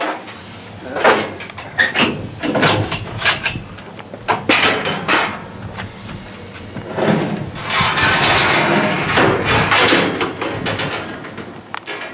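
Irregular knocks and clatter: about six sharp hits in the first five seconds, then a few seconds of louder, denser rushing noise that fades near the end.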